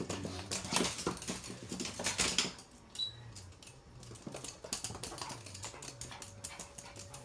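Toy poodles' claws clicking quickly on a hard, glossy floor as they run. The clicks are busy for the first couple of seconds, then thin out to scattered taps.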